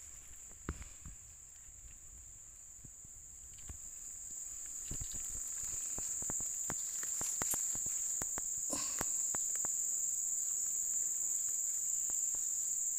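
A steady, high insect chorus in tropical forest, growing louder over the first half, with scattered light clicks and rustles of movement in dry leaf litter.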